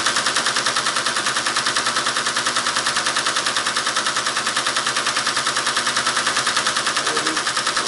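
Teletype ASR 33 clattering steadily as it reads punched paper tape, at about ten clacks a second, one per character. The reader has been restarted remotely by a Control Q (X-on) sent from the terminal.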